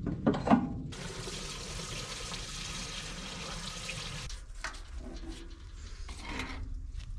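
Fresh diesel being poured through a funnel into a small diesel engine's fuel tank: a steady pouring splash for about three seconds that stops suddenly, followed by a few light knocks.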